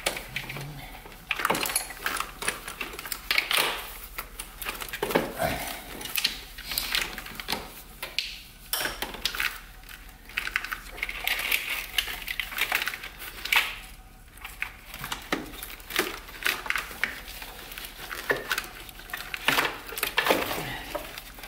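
Irregular clicks, knocks and rattles of hands working plastic and metal parts loose in an LQ4 V8's engine bay, freeing the fuel rail and injectors from the intake.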